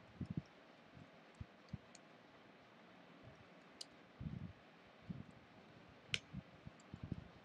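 Faint, irregular keystrokes on a computer keyboard as a line of code is typed, with a couple of sharper clicks among them.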